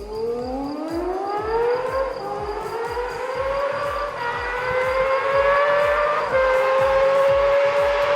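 Sport motorcycle engine revving hard and accelerating through the gears. Its pitch climbs steadily with short dips at the upshifts, about two, four and six seconds in, and it grows louder as it goes. A low, regular beat runs underneath.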